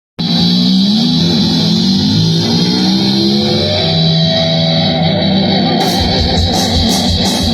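Music: a guitar plays a melody, and drums come in about six seconds in.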